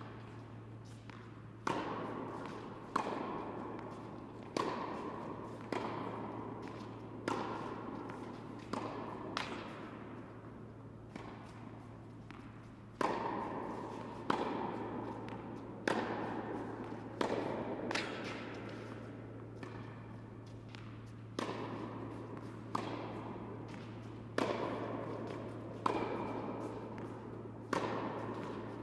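Tennis rally: a ball struck by rackets and bouncing on an indoor hard court, a sharp hit about every second and a half, each ringing on in the hall's echo. A steady low hum runs underneath.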